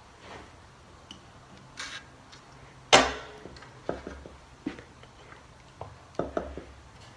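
Scattered knocks and clatter from handling a heavy ceiling fan and its parts. The loudest is a sharp knock about three seconds in that rings briefly, followed by several lighter knocks.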